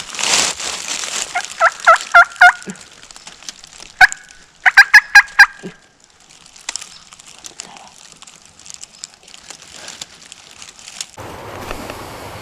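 Wild turkey calling: two quick series of sharp, evenly spaced notes, about four or five in each, the first about a second and a half in and the second around four to five seconds in. A brief burst of noise comes just before them.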